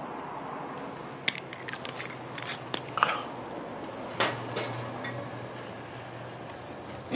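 A few sharp clicks and knocks as a glass bottle is handled and set down on a metal-mesh bench, the last and clearest knock about four seconds in, over a low, steady background hum.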